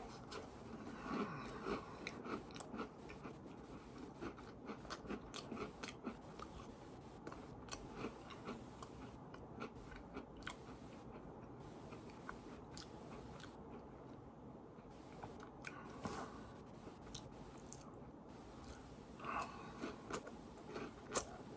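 A person chewing and biting food close to the microphone, with scattered crunches and mouth clicks throughout.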